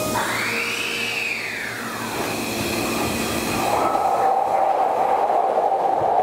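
Hankyu Kobe Line limited express electric train passing on the tracks: a whine rises and then falls over the first two seconds, then a louder, steady running noise sets in about four seconds in.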